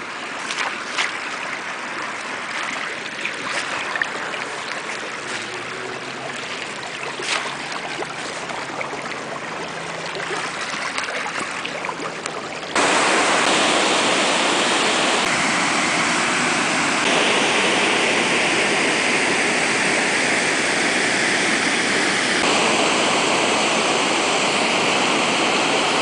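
Water running in a roadside ditch, with a few sharp clicks of handling noise. About halfway through it cuts abruptly to the louder, steady rush of a waterfall pouring over stepped rock ledges into a pool.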